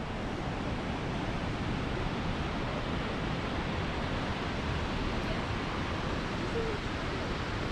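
Steady rushing of the Box Canyon Falls waterfall on Canyon Creek, an even, unbroken wash of water noise.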